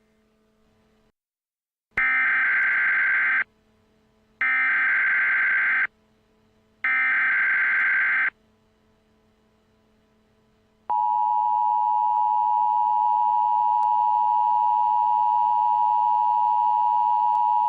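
Emergency Alert System SAME header: three identical harsh digital data bursts, each about a second and a half long with short gaps between, followed about eleven seconds in by the steady two-tone EAS attention signal.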